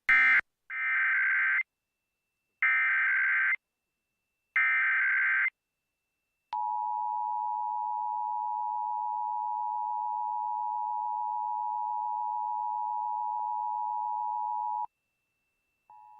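Emergency Alert System test signal. The tail of one data burst is followed by three SAME header data bursts of about a second each. Then comes the EAS two-tone attention signal (853 and 960 Hz), held steady for about eight seconds before it cuts off. Just before the end the two-tone starts again, much quieter.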